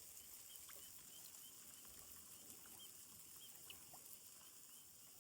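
Faint, scattered little pops and ticks of gas bubbles breaking at the surface of salt-marsh water, against near silence.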